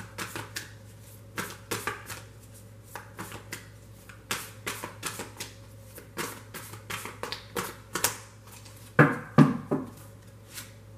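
A tarot deck being shuffled by hand: a long run of quick, irregular card flicks and slaps, then a few louder knocks about nine seconds in.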